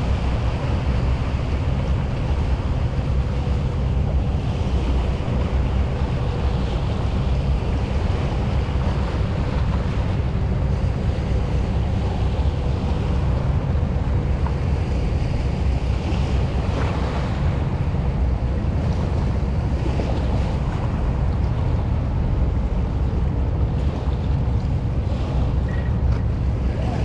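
Wind buffeting the microphone in a steady low rumble, with a faint steady hum underneath.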